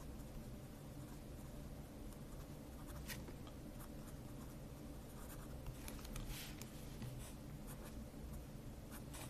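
A pen writing on paper: faint scratching strokes as a word is written out, a little stronger about three seconds in and again between six and seven seconds, over a low steady hum.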